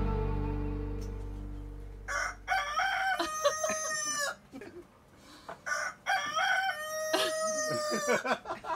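Background music fading out over the first two seconds, then a rooster crowing twice, each crow about two seconds long.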